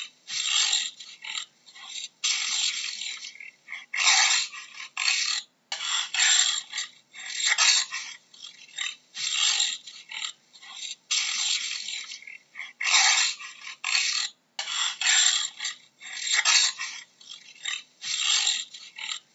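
Jaguar giving its sawing call: a series of harsh, breathy grunts, each under a second long, repeated about once a second.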